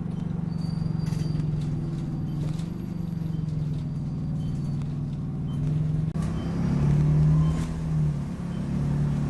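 Optare Solo midibus's diesel engine running while the bus drives, heard from inside the saloon, its pitch wavering and then rising and getting louder after a short drop about six seconds in. Faint short high squeaks recur about once a second.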